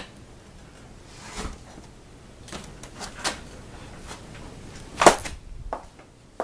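Scattered clicks and knocks of hands handling things, with one louder knock about five seconds in; no burner is heard lighting.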